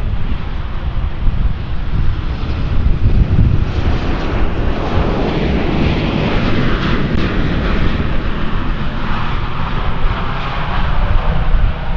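Airliner engines running loud and continuous, the sound building about halfway through as the aircraft passes, over a heavy low rumble.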